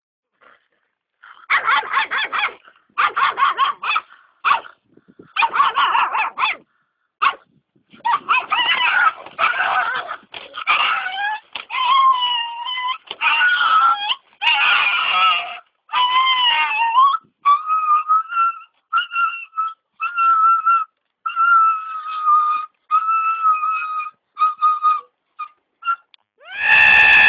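A cat crying out over and over in short yowls and whines. The early cries are rough and waver in pitch; from about two-thirds of the way in they become shorter, steadier, higher mews.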